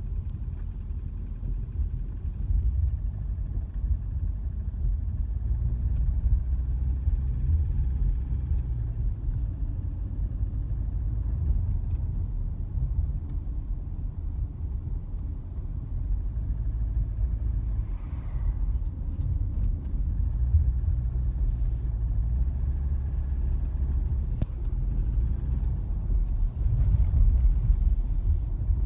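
Subaru Forester's 2.0 L EJ20 non-turbo flat-four engine running with a steady low rumble, carrying a piston knock: a diagnosis found the number 4 piston worn and due for replacement, and number 2 advisable too.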